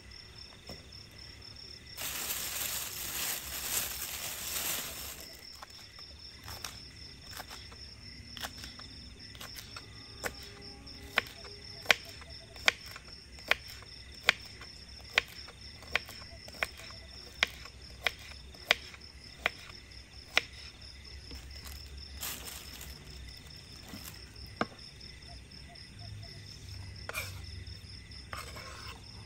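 A kitchen knife chops green onions on a wooden cutting board as a regular series of sharp knocks, a little more than one a second, in the middle of the stretch. A few seconds of rustling come about two seconds in. A steady high insect trill runs under it all.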